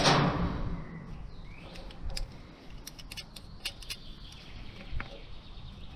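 A short rustling knock at the start, then a quiet stretch with scattered short bird chirps.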